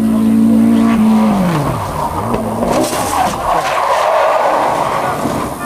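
Hill-climb race car's engine held high for about a second, then falling in pitch as the car slows. Its tyres then squeal for about three seconds as it slides through a hairpin.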